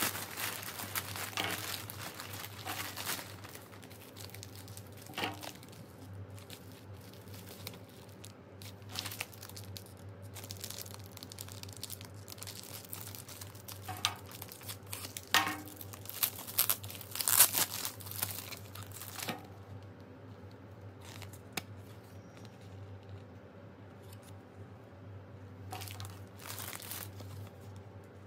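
Plastic courier mailer bags and product packaging being torn open and crinkled by hand, an irregular run of rustling and tearing that is loudest about halfway through. A steady low hum sits underneath.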